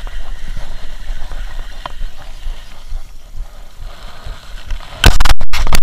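Wind rumbling on an action camera's microphone, then about five seconds in a very loud, distorted burst of noise on the microphone that cuts out in brief gaps.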